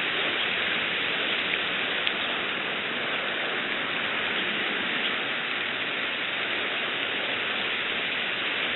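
Steady hiss of rain falling on and around the pond, with a few faint ticks of drops.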